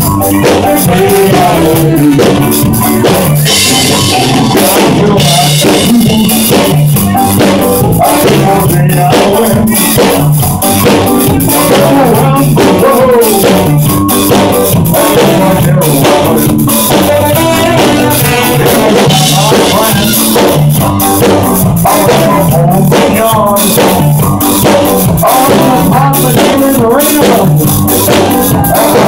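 Live rock band playing loudly, the drum kit prominent under bass and singing.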